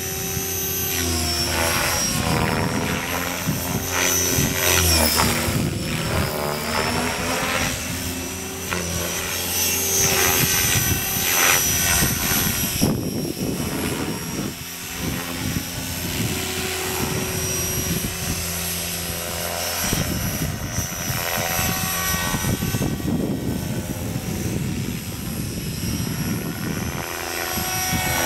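GAUI Hurricane 550 electric RC helicopter flying aerobatics: a steady rotor buzz with a high motor and gear whine. The pitch and loudness rise and fall as it manoeuvres, with louder swells about four and eleven seconds in.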